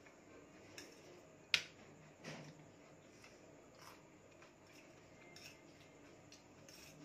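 Fork clinking against a steel plate while eating noodles: one sharp clink about a second and a half in, a duller knock just after, and a few faint taps later.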